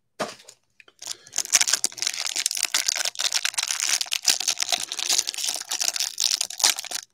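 Plastic wrapping on a pack of trading cards crinkling and tearing as it is opened, a dense run of fine crackles starting about a second in.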